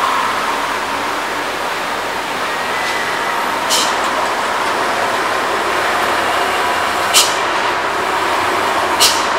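Diesel trucks running slowly in a line of heavy traffic, a steady engine noise, with three short sharp air-brake hisses, the last near the end.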